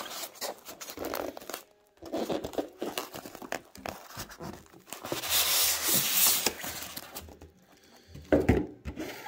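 Styrofoam packing block scraping and rubbing inside a cardboard box sleeve as it is pushed out, with cardboard crinkling. The rustling is densest in the middle, and there is a short loud knock near the end.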